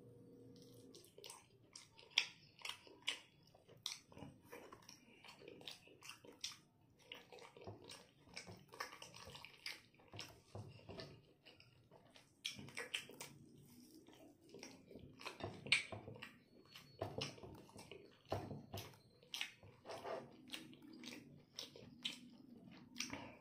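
A person chewing braised pork belly and rice close to the microphone, with mouth smacks making an irregular run of short clicks and a few louder ones.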